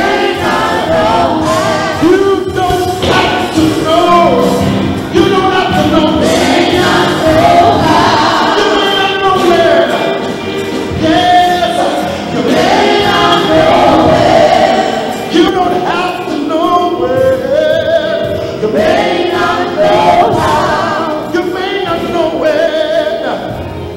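A man singing a gospel worship song into a handheld microphone.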